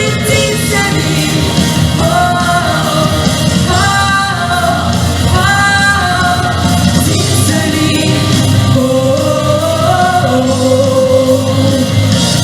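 A song with a singer holding long notes over full band accompaniment.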